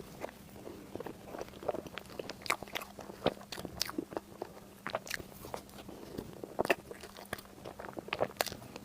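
Close-miked chewing and biting into crunchy food, with irregular short crackles and crunches.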